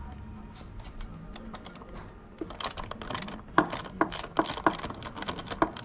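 Hand tool at work on a motorcycle's rear-seat bolt: a hex-key screwdriver turning and tapping metal on metal, making irregular sharp clicks that come thicker and louder from about halfway in.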